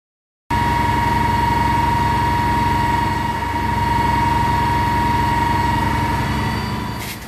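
Fire engine running steadily with a steady high whine over the engine note, as it pumps water onto a fire. It starts abruptly about half a second in.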